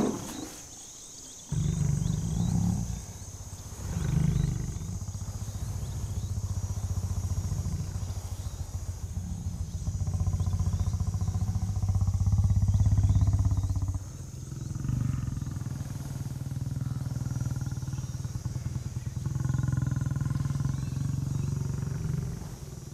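Lion growling low and continuously in two long stretches, with a short break about two-thirds of the way in. A steady high insect drone sounds behind it.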